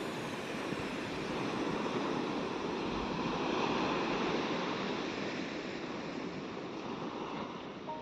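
Surf breaking and washing up a sandy beach: a steady rush of waves that swells a little a few seconds in.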